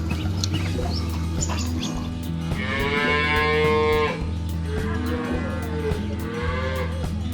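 Cow mooing: one long, drawn-out moo about two and a half seconds in, followed by shorter moos, over background music.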